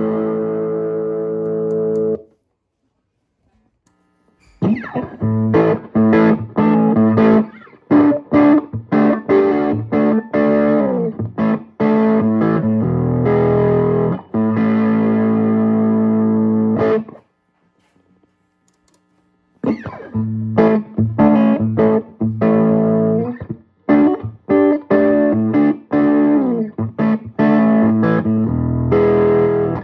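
Electric guitar played through a small 18-watt tube amp head and power soak attenuator, with an overdriven tone. A held chord rings and stops about two seconds in; after a short pause come strummed chords and riffs, broken by another pause of about two seconds past the middle.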